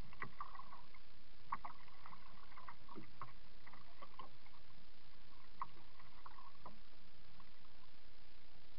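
Kayak being paddled, heard through a waterproof camera's housing: muffled water splashes and drips with scattered light knocks over a steady hiss, thinning out near the end.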